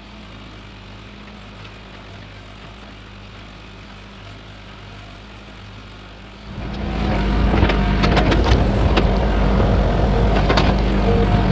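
Excavator diesel engine running at a steady low speed, then revving up hard about six and a half seconds in, much louder, with sharp metallic clanks and knocks as the machine works.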